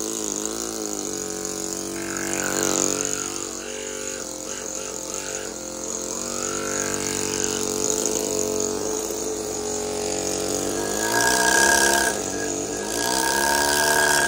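Pneumatic carving hammer buzzing as its chisel cuts into marble, in two louder runs near the end. A steady pitched hum continues in between.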